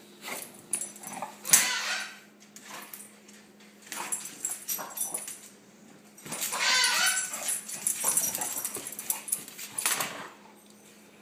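Two bulldogs play-fighting, with whining and grumbling dog vocalizations and scuffling in irregular bursts. The loudest bursts come about a second and a half in and again from about six and a half to ten seconds.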